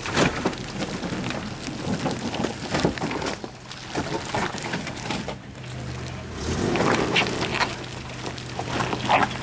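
Four-wheel-drive vehicles crawling through a wet mud track: tyres squelching and splashing in the mud with many short crackles, and a steady low engine hum from about halfway through.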